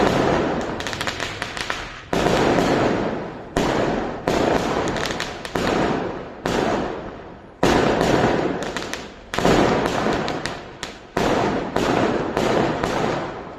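Fireworks going off in quick succession: about a dozen sharp bangs, one every second or so, each fading away over about a second.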